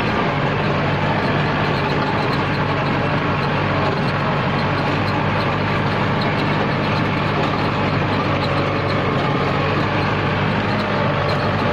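Kubota L4708 tractor's four-cylinder diesel engine running steadily under load as the tractor climbs a steep slope, heard from the driver's seat.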